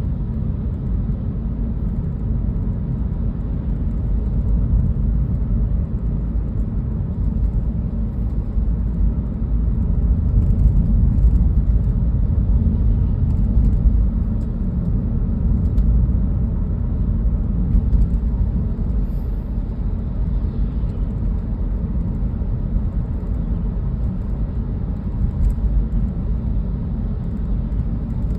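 Steady low rumble of a car driving, heard from inside the cabin: engine and tyre road noise, with small rises and falls in loudness.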